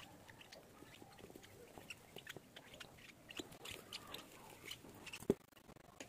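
Faint, scattered wet clicks and smacks of a bird chick gulping food as it is hand-fed from a spoon. One sharp knock about five seconds in.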